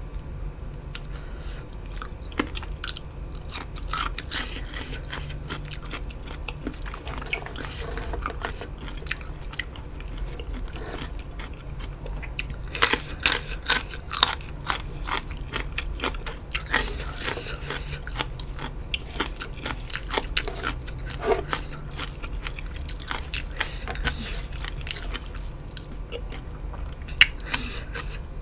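A person eating close to the microphone: irregular chewing, biting and crunching of a meal of rice noodles in curry with chicken feet and crisp raw vegetables. The loudest run of crunches comes about halfway through.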